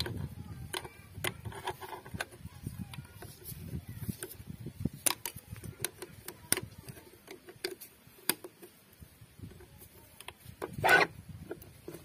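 Irregular small metal clicks and taps of pliers working a steel cotter pin at the pin joint of a tractor's brake actuator linkage. A louder, brief scrape comes about eleven seconds in.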